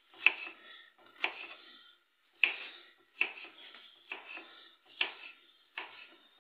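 Kitchen knife chopping bitter gourd (karela): sharp knocks about once a second, each with a short ringing tail.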